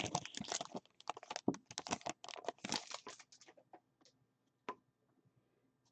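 A sealed Panini Contenders trading-card pack being torn open and its wrapper crinkled: a dense run of crackles for the first few seconds, thinning to a couple of single ticks.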